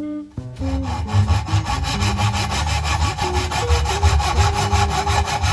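A saw cutting through wood in a fast, even, rasping rhythm, starting about half a second in, over background guitar music.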